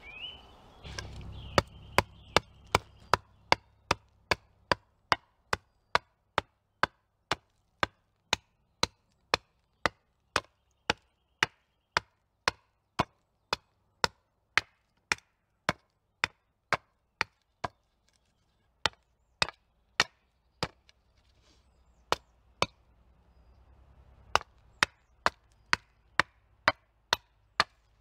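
Small hatchet chopping into the end of a wooden pole to sharpen it into a stake point, one sharp blow after another at about one and a half to two a second. The blows stop for a few seconds about two-thirds of the way in, then resume a little faster.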